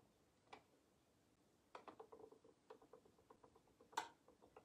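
Near silence with faint, irregular small clicks and taps, the sharpest about four seconds in. They come from a porcelain egg being handled and painted on a wooden egg lathe.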